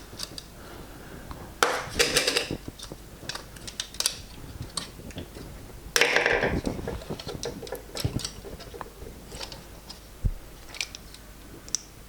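Plastic parts of a car instrument cluster being handled: scattered light clicks and taps, with a brief louder clatter about two seconds in and another about six seconds in.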